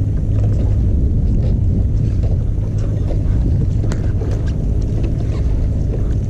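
Steady low rumble aboard a small fishing boat on the water, with wind on the microphone.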